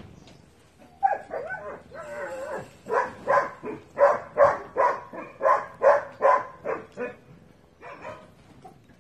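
A dog barking repeatedly, about two to three barks a second, starting about a second in and stopping near the end.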